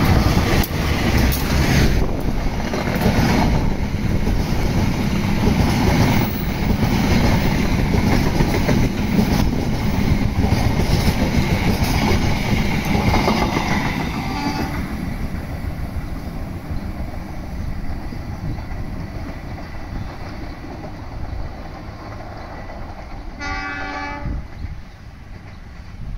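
GE-built CC201 diesel-electric locomotive and its stainless-steel passenger coaches passing close by at speed, engine and wheels on the rails loud for about fourteen seconds, then fading as the train moves away. Near the end a horn sounds briefly, once.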